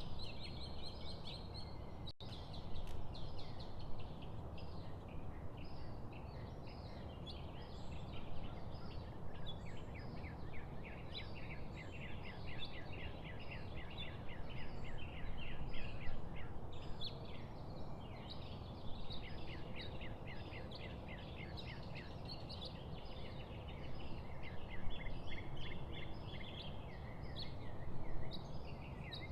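Many small songbirds chirping and trilling in a dense, overlapping chorus, over a steady low background noise.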